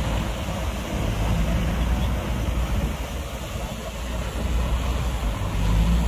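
Diesel engine of heavy earthmoving machinery running with a steady low hum, growing louder near the end.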